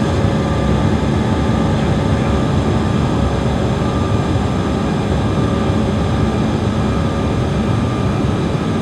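Steady cabin drone inside a Bombardier CRJ700 regional jet descending on approach: the noise of its two rear-mounted General Electric CF34 turbofans and the air rushing past, with a few faint steady whines on top.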